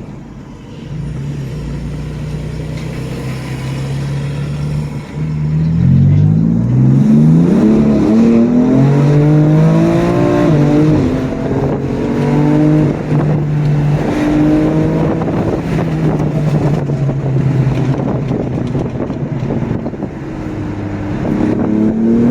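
2017 BMW M4's stage 2–tuned twin-turbo inline-six pulling hard. The engine note runs steady for about five seconds, then climbs sharply through the revs and grows louder, holds at a higher, steadier pitch, and rises again near the end.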